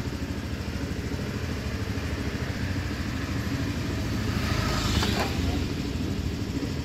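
An engine running steadily, a low even rumble, with a brief louder rush of noise about five seconds in.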